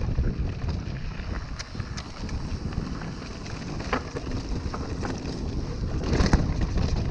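Wind buffeting the camera microphone over the rumble of mountain bike tyres on a dirt trail, with scattered clicks and rattles from the bike. A louder clatter comes about six seconds in as the bike crosses a rocky stretch.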